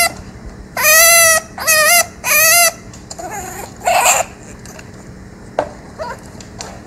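Chinchilla screaming, or crying: three loud, high-pitched cries with a wavering pitch in quick succession, followed about four seconds in by a harsher, noisier call. It is the cry of a chinchilla that is either in a lot of pain or absolutely terrified.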